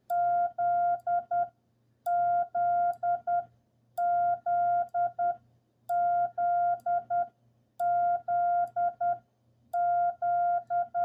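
Morse code tone at about 700 Hz sending the letter Z, dah-dah-dit-dit, six times, about every two seconds.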